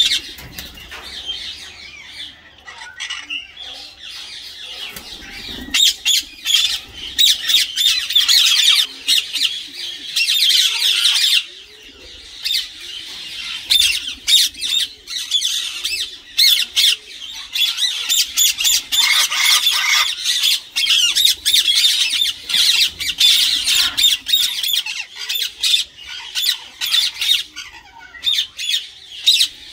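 A flock of Indian ringneck parakeets giving short, shrill squawks. The calls are sparse for the first few seconds, then become a dense, near-continuous chorus from about six seconds in.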